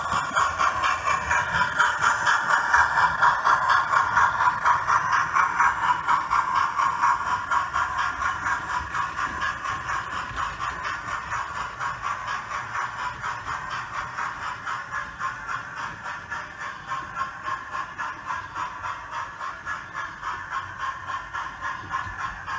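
Model train running along the layout's track: a rapid, even clicking of wheels over rail joints, about four clicks a second, over a steady running noise. It grows gradually fainter as the train moves away.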